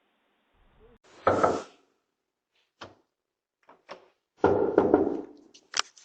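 Heavy bangs and thuds on a front door: a loud burst about a second in, lighter knocks after it, and a longer, louder burst of blows about four and a half seconds in.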